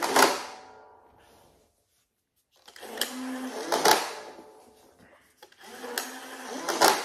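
Motorized speed-load mechanism of a Nerf Elite Infinus blaster, its flywheels whirring up three times as darts are pushed into the funnel and driven back into the drum magazine. Each cycle ends in a sharp clack: one right at the start, one about four seconds in and one near the end.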